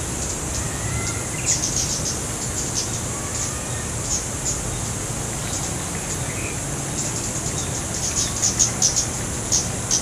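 Short, very high chip notes from a female cit keres (cabean), a small wild songbird, coming in quick clusters and densest near the end. A steady high insect drone runs underneath.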